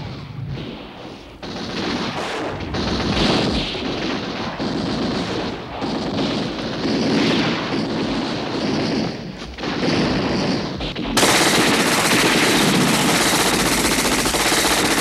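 Battle sound effects: bursts of machine-gun and rifle fire. About eleven seconds in, the noise turns suddenly louder and unbroken.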